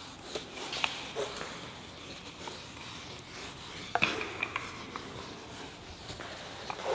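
Whiteboard duster wiping the board and a marker writing on it: soft rubbing with scattered short squeaks and taps, the loudest about four seconds in.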